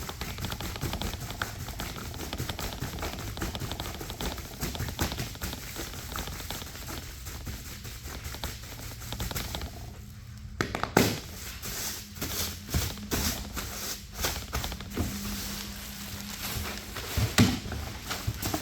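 Plastic bags rustling and crinkling as they are handled, with scattered clicks and a few louder knocks.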